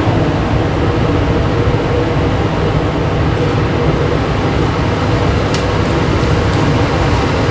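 Loud, steady rushing noise, heaviest in the low end, holding unchanged throughout.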